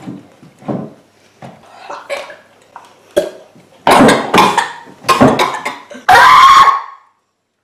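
Boys coughing, gasping and crying out from the burn of a habanero chili. Short coughs come first, then louder outbursts about four seconds in, ending in a long, loud yell.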